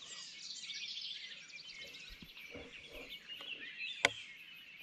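Songbirds chirping steadily at dawn, with faint low turkey calls in the middle and a single sharp click about four seconds in.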